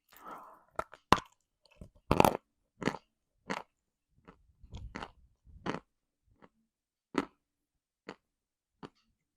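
A person biting and chewing dry lumps of edible chalk and clay, with sharp separate crunches about every half second to a second, loudest in the first couple of seconds.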